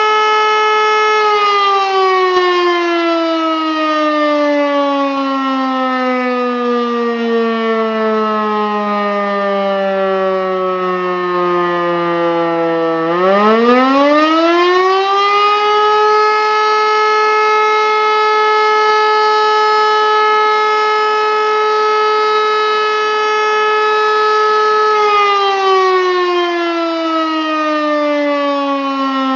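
E57 electric motor siren sounding the German fire alarm signal (Feueralarm): its steady howl is switched off about a second in and winds down slowly in pitch for about twelve seconds. It then spins back up to full pitch within about three seconds, holds a steady tone for about nine seconds, and is switched off again, winding down near the end.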